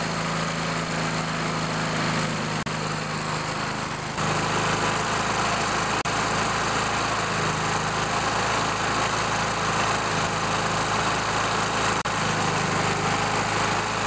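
Briggs & Stratton single-cylinder engine of a Craftsman (Murray) self-propelled lawn mower running steadily, a little louder from about four seconds in.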